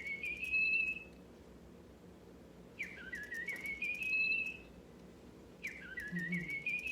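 Electronic toy bird chirping: the same rising trill of tweets, repeated three times at even spacing.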